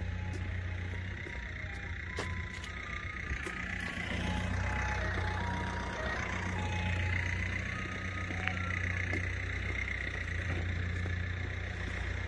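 A vehicle engine running steadily with a deep, even hum, with scattered short high beeps and a few clicks over it.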